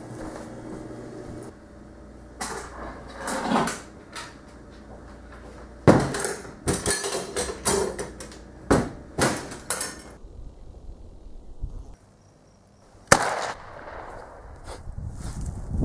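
Clicks, knocks and clatter of objects being handled, coming thickest in a run of quick clicks through the middle, followed by a sharp bang about thirteen seconds in.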